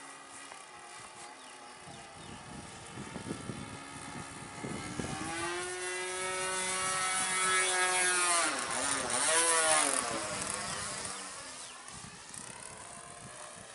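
Evolution 15cc two-stroke gasoline engine turning a 13x6 APC propeller on a radio-controlled Hangar 9 Ultra Stick, buzzing in flight. It swells to its loudest around eight to ten seconds in, with a few quick dips in pitch there, then fades away.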